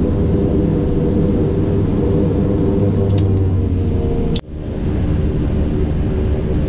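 Twin PT6A turboprop engines and propellers of a Beechcraft King Air A100, heard from inside the cockpit as a loud, steady drone made of several layered tones. About four and a half seconds in, the sound cuts out abruptly for a moment, then the same steady drone comes back.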